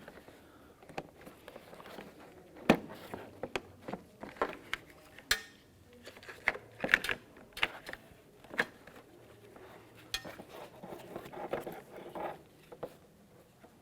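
Scattered light clicks and taps of hard plastic and metal parts being handled, as the cover of a car door lock actuator is brought back down and fitted. The clicks come irregularly, a few seconds apart, with a sharper one about 3 seconds in and another about 5 seconds in.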